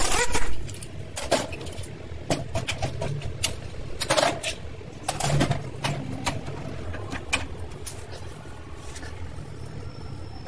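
A brief burst from an impact wrench spinning off a suspension strut's top nut right at the start, then scattered metal clinks and knocks as the strut's top mount and parts are taken off by hand.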